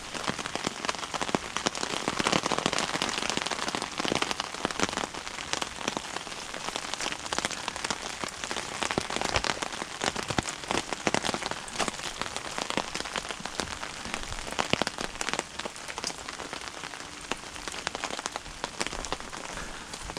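Rain pattering steadily on a tarp, a dense run of small drops.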